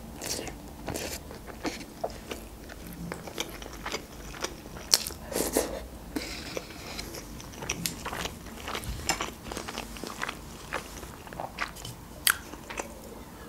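Mouth sounds of a person eating instant noodles close to the microphone: slurping noodles in, then chewing, with many irregular wet clicks and smacks.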